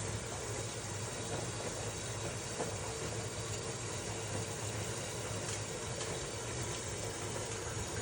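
Washing machine running: a steady low hum with a hiss of water running in.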